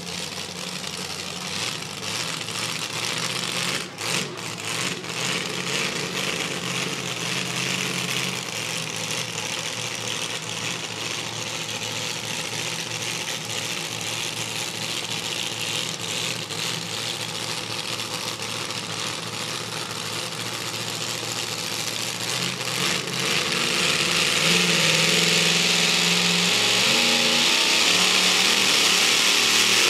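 Modified two-wheel-drive pulling truck's racing engine running steadily while hooked to the sled. Near the end it gets much louder as the truck goes to full throttle and starts its pull.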